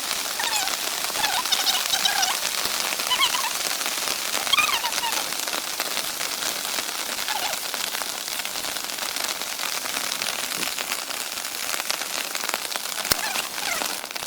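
Heavy monsoon rain falling steadily on a tarp shelter, a dense even hiss of drops. A few short chirping calls sound faintly over it early on and again near the end.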